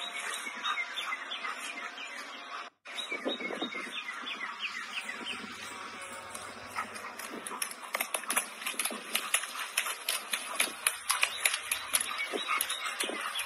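A dog's paws splashing and slapping in a shallow muddy puddle and on wet grass, many quick irregular hits, with birds chirping throughout.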